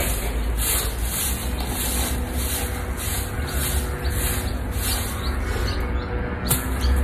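Stiff stick broom of bundled twigs sweeping over dirt and grass in repeated scratchy strokes, about two a second, over a steady low rumble.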